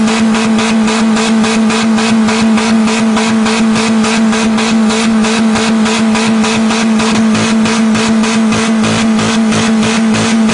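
Car engine held flat out at a steady high rev, its pitch unchanging, with an even pulsing about three to four times a second. It is being deliberately over-revved to blow it up.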